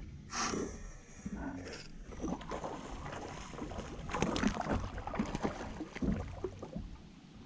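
Water splashing and knocking as a hooked bass is fought up to the side of a fishing kayak, with irregular splashes that are loudest in the middle.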